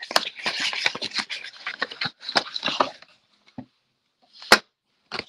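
Plastic shrink-wrap crinkling and rustling for about three seconds as it is pulled off a metal trading-card tin, then a pause and a single sharp knock.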